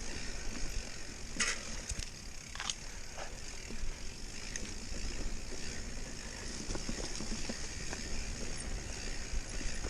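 Mountain bike being ridden over a trail: steady tyre and riding noise with scattered sharp clicks and rattles from the bike, the clearest about one and a half and two and a half seconds in.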